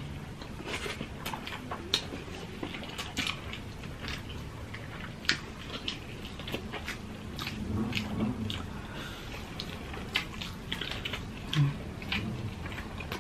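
Close-up chewing and biting by two people eating with their hands, full of short wet mouth clicks, a few of them sharper.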